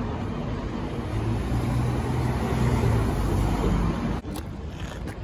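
Street traffic noise with a heavy low rumble, loudest in the middle, that cuts off abruptly about four seconds in, leaving quieter background with a few faint clicks.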